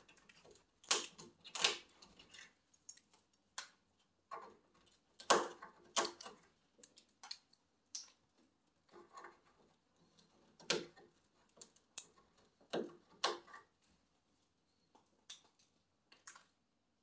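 A macaw's beak biting and gnawing at the wooden branches of a perch stand: irregular sharp cracks and clicks of wood, a handful of louder snaps among quieter ticks.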